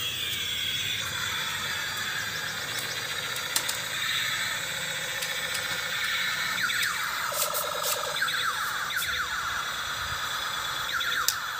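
Electronic sound effects from a battery-operated convertible tank-to-fighter-jet toy, played through its small speaker. A steady high-pitched squealing whine runs throughout, and about halfway through comes a quick series of falling whistles, like bombs dropping.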